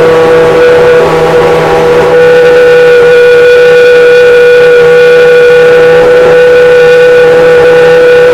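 Peugeot V10 engine of a three-seater Formula 1 car running loud at a steady, high-pitched fast idle, its pitch holding constant; about two seconds in, more of its higher tones come through.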